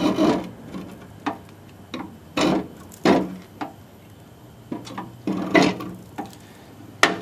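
Keyway broach being pressed through a cast flywheel hub on a drill press, its teeth cutting the metal in a series of short, irregular cracks and scrapes, about ten in seven seconds.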